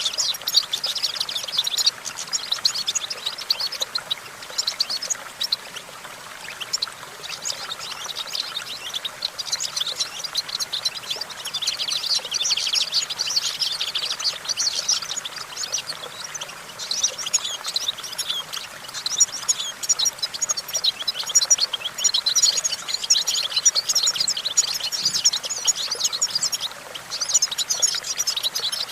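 European goldfinch singing: a long, fast run of high twittering chirps, broken by a few brief pauses.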